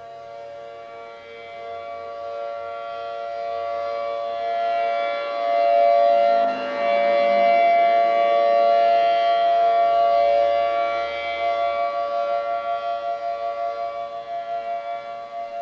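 ACA P50 outdoor warning siren sounding a steady two-tone chord at full pitch. It swells louder over the first six seconds or so as its rotating horn sweeps toward the listener, then slowly fades with a pulsing wobble near the end.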